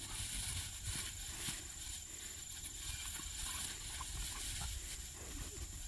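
Tall grass rustling and swishing as two puppies wrestle and chase each other through it, with a few soft scuffles. A steady high insect drone runs underneath.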